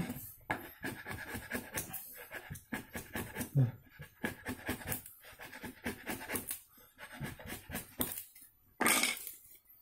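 A steel wood chisel pushed by hand across a wooden board, paring and scraping off shavings in a rapid, irregular series of short scraping strokes, with a louder scrape near the end.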